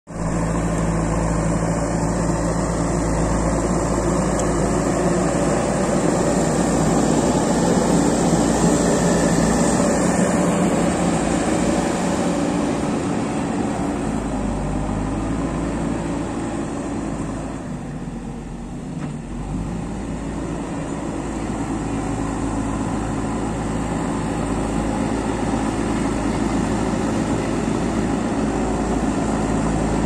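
JCB 3DX backhoe loader's diesel engine running steadily under work as the machine pushes soil with its front loader bucket and drives about. The engine eases off for a moment a little past halfway, then builds again.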